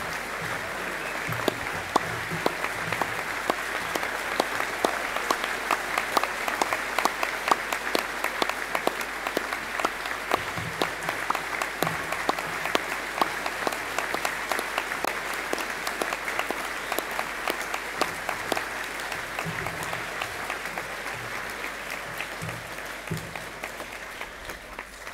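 Audience applauding, a dense patter of many hands clapping that eases off near the end.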